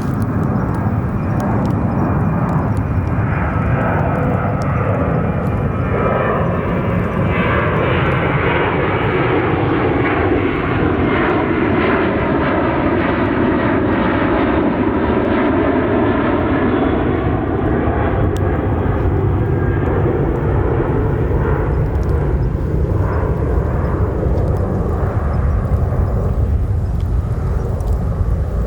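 Jet airplane passing low overhead, its loud engine noise swelling and sweeping in pitch as it goes over, loudest around the middle. Faint crackles from a wood campfire come through underneath.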